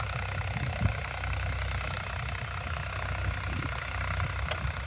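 8 hp single-cylinder diesel engine of a farm water pump set running steadily with an even, rapid beat.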